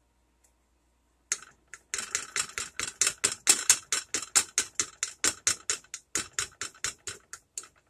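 A yellow plastic measuring spoon and a seasoning bottle clicking and tapping together over a saucepan, a quick, even run of light clicks, about five a second, that starts about a second in and stops near the end.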